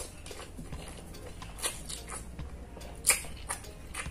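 A person slurping and chewing instant noodles: a run of irregular wet smacks and sucks, the loudest about three seconds in.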